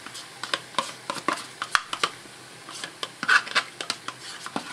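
Crème fraîche being scraped out of a plastic tub into a stainless saucepan, with irregular sharp clicks and taps of the utensil against the tub and the pan.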